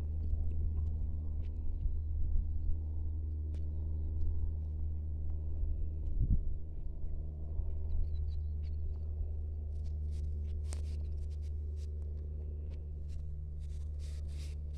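A steady low hum runs throughout, with soft scattered clicks and rustles of footsteps on a dry grassy dirt track. Sharper crackling rustles cluster in the last few seconds.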